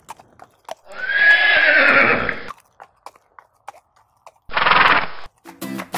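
A horse whinnies once for about a second and a half. About four and a half seconds in comes a shorter, noisier burst, and light clicks are scattered throughout. Plucked guitar music starts just before the end.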